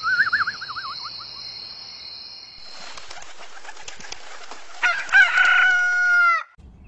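Morning sound effects: a short wavering whistle-like tone at the start, then birds' wings flapping, and a rooster crowing once for about a second and a half near the end.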